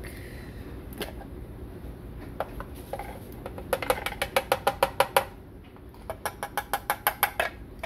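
Rapid tapping on a burr grinder's clear plastic grounds bin, knocking ground coffee out into a filter basket: two quick runs of about ten taps a second, the first past the middle and the second near the end, with a single knock about a second in.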